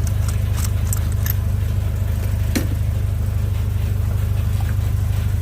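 Audi A4 1.8 four-cylinder engine idling steadily, with a few light clicks. The engine has a misfire that is traced to a dead spark plug.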